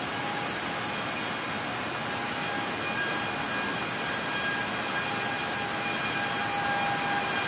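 Small ducted-propeller cinewhoop FPV drone in flight: a steady hiss of propeller wash with a faint whine of motor tones above it, growing a little louder near the end.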